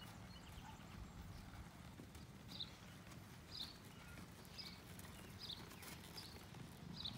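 Faint, soft hoofbeats of a feathered piebald Gypsy Vanner-type horse walking on grass under a rider. A short high note repeats about once a second from about two and a half seconds in.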